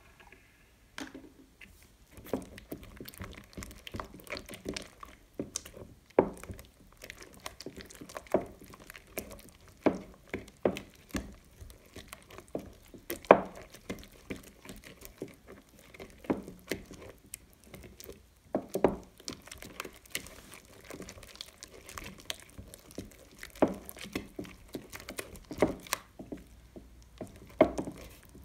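A silicone spatula stirs sticky blue glitter slime as the glue thickens with activator: the slime squelches and the spatula knocks and scrapes against the glass bowl in irregular strokes, one or two a second.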